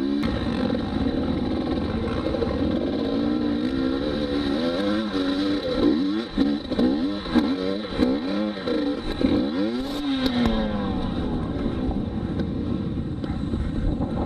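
Dirt bike engine revved up and down in a string of quick bursts, roughly one or two a second, at a steep dirt bank, then settling to a steadier run.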